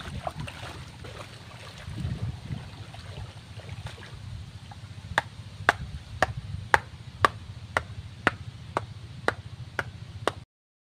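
Wind buffeting the microphone with water sloshing as a man wades into shallow water. From about five seconds in, a run of evenly spaced sharp knocks, about two a second, is the loudest sound and stops abruptly near the end.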